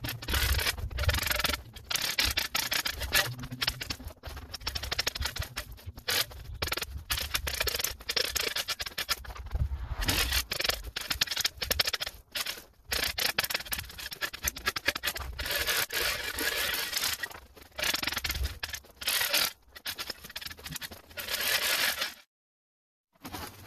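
A small shovel blade scraping and chopping at hard-packed snow in quick, irregular strokes. The sound breaks off for about a second near the end.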